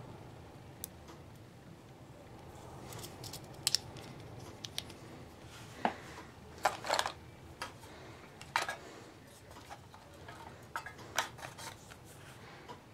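Small items being handled and set down on and around a metal storage tin: a scatter of light clicks, taps and rattles, loudest from about six to nine seconds in, over a faint steady hum.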